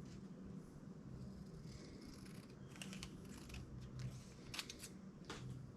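Faint, scattered sharp clicks and light scrapes of a steel bicycle fender piece being handled and laid up for a fit.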